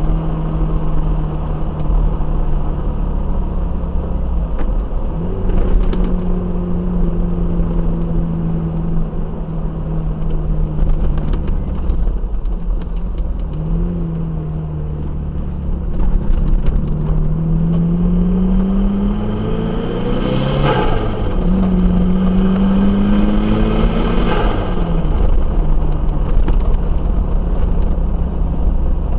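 Turbocharged Toyota Hilux engine running under load, its revs climbing steadily several times over a heavy low rumble. Twice, about two-thirds of the way through and again a few seconds later, a climb breaks off with a short loud burst: turbo flutter on lift-off, because the truck has no blow-off valve.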